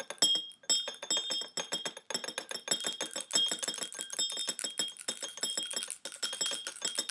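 Small bells jingling rapidly, several strikes a second, with high ringing tones that build up about three seconds in.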